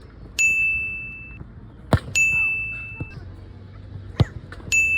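A bright metallic ding, three times, each ringing on one high tone for about a second, with two or three short sharp knocks in between.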